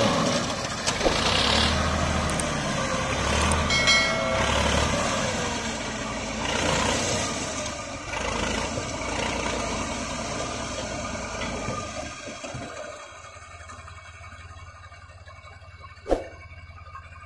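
Mahindra 575 DI tractor's diesel engine running while its hydraulic tipping trolley dumps a load of sand. Past the middle the engine settles to a quieter idle, and a single sharp knock sounds near the end.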